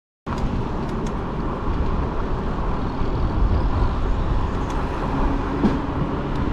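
Steady outdoor road-traffic noise with a heavy low rumble and a few faint clicks, cutting in abruptly a moment after the start.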